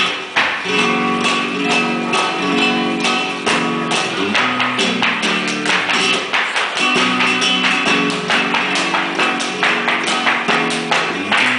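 Live flamenco music: a nylon-string flamenco guitar playing with rhythmic hand clapping (palmas), sharp claps in a fast, even beat over the guitar notes.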